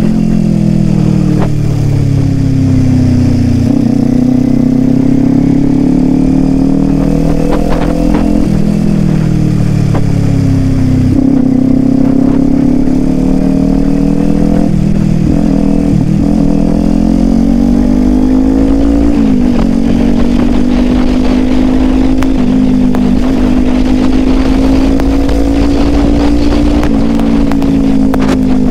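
Kawasaki Ninja 400 parallel-twin engine running under way, its pitch repeatedly climbing and then dropping sharply, about half a dozen times, as the rider works the throttle and shifts gears.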